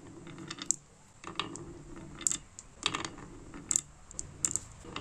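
Marbles rolling along a wooden wave-shaped track, a short rumble each time one runs through the curves, with sharp clicks as they drop into the hollows and knock against the marbles already there.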